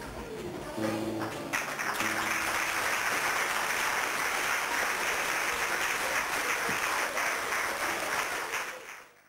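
The last notes of a song give way, about a second and a half in, to an audience applauding steadily; the applause fades out near the end.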